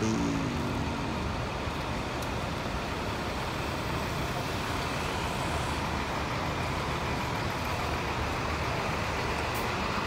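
Diesel engine of a Hino intercity bus running steadily as the bus pulls out of its bay and drives slowly past close by.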